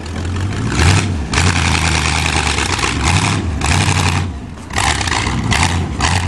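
Car engine revving in repeated surges over a steady low running note, with short drops between them and a longer lull about four and a half seconds in.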